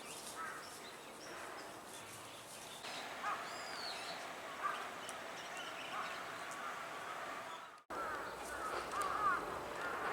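Wild birds calling in short chirps and chatter, white-cheeked starlings among them. The sound drops out for an instant about eight seconds in and the calls go on after it.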